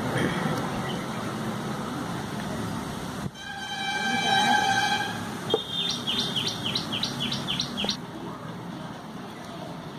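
Steady background noise with a horn sounding once for nearly two seconds, starting suddenly. Just after it, a brief knock, then a bird calls in a quick run of about eight falling chirps.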